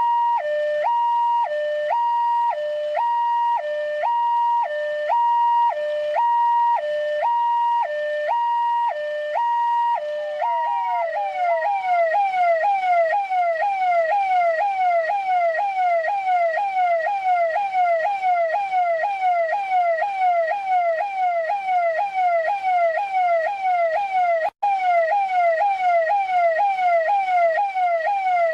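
Russian police car's electronic siren: a two-tone high-low alternation for about the first ten seconds, then it switches to a quick repeated falling sweep, about two sweeps a second. It cuts out for an instant once, near the end.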